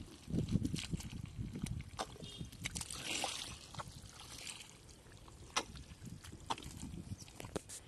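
Feet squelching and sloshing through deep, wet mud, step after step, with scattered sharp wet clicks and a short hiss about three seconds in.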